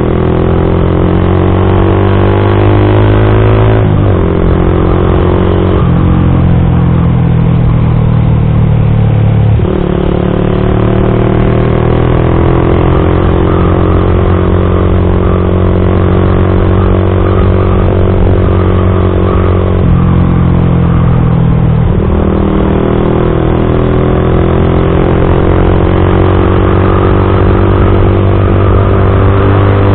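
Yamaha MX King 150's single-cylinder four-stroke engine running loud through a custom aftermarket exhaust while the motorcycle is ridden. The engine note climbs under acceleration and drops sharply at gear changes, several times: about 4, 6 and 10 seconds in and again around 20 and 22 seconds.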